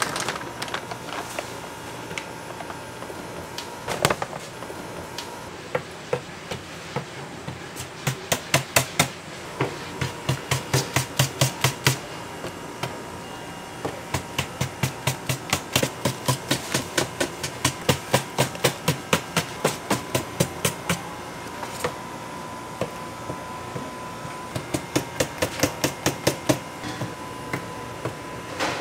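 Knife chopping on a cutting board in several runs of quick, even strokes, about five a second, with a single louder knock early on.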